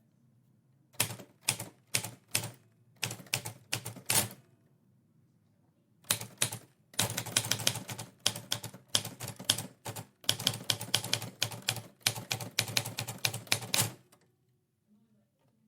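Typewriter keys striking: a short burst of scattered keystrokes, a pause of under two seconds, then a longer run of fast, steady typing that stops about a second and a half before the end.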